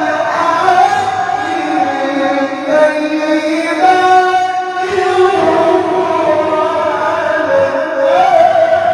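A man reciting the Qur'an in melodic tilawah style, into a microphone: long held, ornamented notes that bend and glide, with no break.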